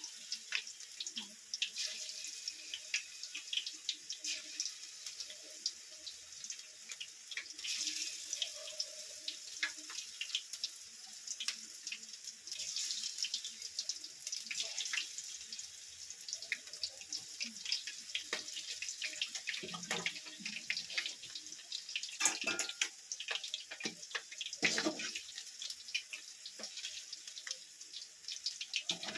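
Batter-dipped leaf fritters (bajji) deep-frying in hot oil: a steady sizzle full of fine crackling, with a few louder crackles in the last third.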